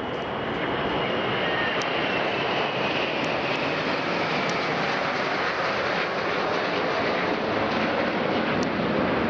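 Jet aircraft flying past, its engines making a loud, steady rushing noise that builds at the start and then holds, with a faint whine that falls slowly in pitch over the first few seconds.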